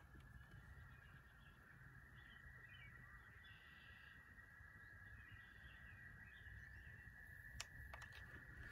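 Near silence: a faint steady hum and hiss with a few faint bird calls in the middle, then a few sharp clicks near the end from a DSLR camera's shutter.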